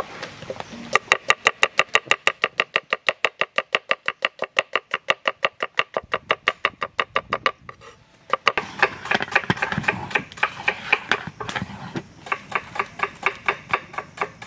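Knife slicing onions on a wooden board, the blade knocking the board in quick, even strokes of about six a second. After a brief pause near the middle comes a stretch of faster, less even chopping, then steady strokes again.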